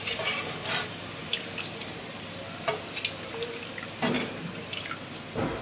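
Hot oil in a kadai sizzling and crackling softly, with oil dripping back into the pan from a wire skimmer full of deep-fried pakoras. Two sharper knocks, one about four seconds in and one near the end.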